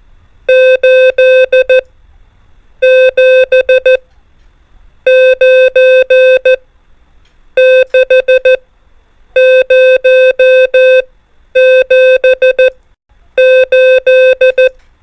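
Morse code (CW) practice tone at about 500 Hz sending digits one at a time. Each digit is a quick run of dots and dashes, with a pause of about a second between digits, eight in all.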